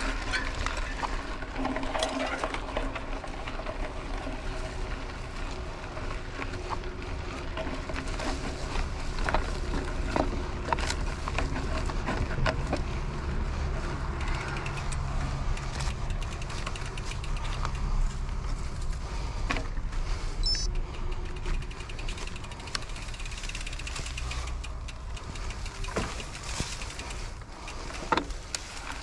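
Mountain bike riding on a dirt road: tyres rolling over gravel with a steady low rumble, and the bike rattling with scattered sharp clicks and knocks over bumps.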